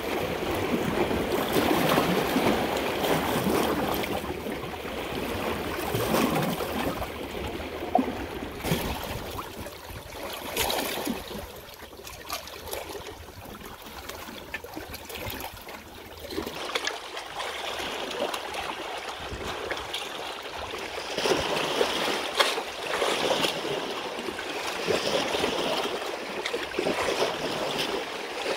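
Water running in a stream, a continuous gurgle with small splashes. It swells and eases in loudness, dipping quieter through the middle and picking up again near the end.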